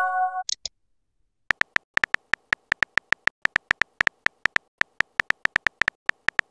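Phone keyboard typing sound effect: quick, even clicks, about six a second, starting about a second and a half in, as a text message is typed out. It opens with the tail of a short electronic chime and two tiny high blips, then a brief silence.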